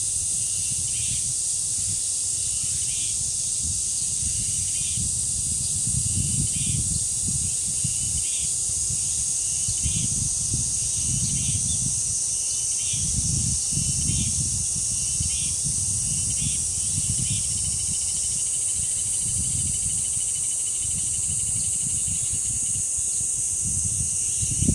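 A chorus of cicadas droning steadily and shrilly, with a bird giving short repeated calls about once a second and wind gusting on the microphone as uneven low rumbles.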